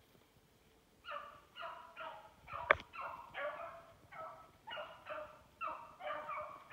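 Rabbit-hunting hound baying in repeated bursts, about two a second, starting about a second in: the cry of a dog running a rabbit's scent trail. A single sharp crack comes a little before the middle, the loudest sound.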